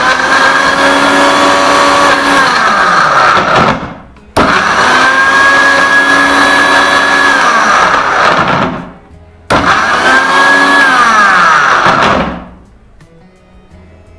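Butterfly Rapid 750-watt mixer grinder run in three bursts of a few seconds each, starting abruptly and winding down with a falling whine between runs, then stopping near the end. It is chopping carrot and beetroot pieces with no water in the jar.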